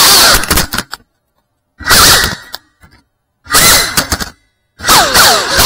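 FPV quadcopter motors whining, their pitch swooping quickly up and down with the throttle. The sound cuts off abruptly into dead silence three times between short bursts, and the whine returns for good near the end with fast falling glides.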